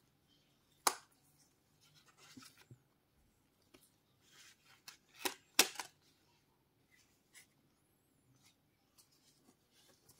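Cardboard flaps and paper inserts of a phone box being handled with gloved hands. A sharp click about a second in and two more close together just past the middle stand out over soft rubbing and rustling of board and paper.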